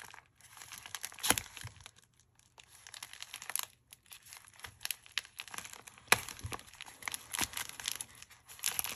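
Plastic bubble mailer crinkling and rustling as it is handled, with scattered sharp crackles.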